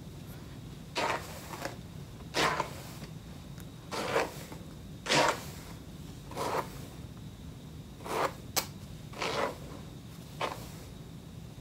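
Hands running through long straightened wig hair, making short rustling swishes about once a second, roughly nine times.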